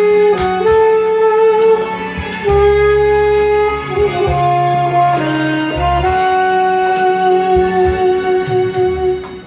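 Instrumental intro of a Korean trot song: a held melodic lead line moving in slow steps over bass notes and a steady drum beat of about three ticks a second.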